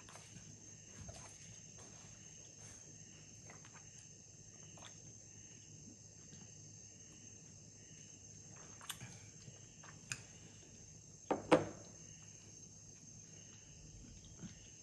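Quiet sipping of water through a straw from a glass jar cup, over a steady high-pitched electrical whine. A few small clicks around nine and ten seconds in, then one louder short thump about eleven seconds in.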